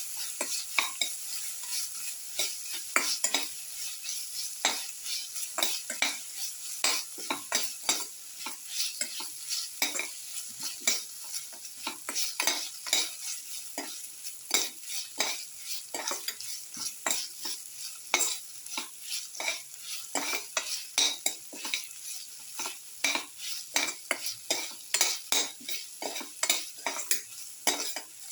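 Ginger and shallots frying in oil in a pan, sizzling with a steady hiss. A utensil stirs and scrapes against the pan in quick, irregular strokes.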